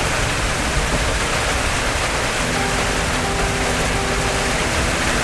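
Heavy rain falling on the house roof, heard from inside: a steady, even hiss.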